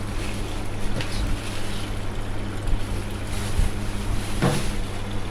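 Samsung washing machine filling with water at the start of its cycle: a steady rush of water pouring into the drum over a low steady hum, with a couple of faint ticks.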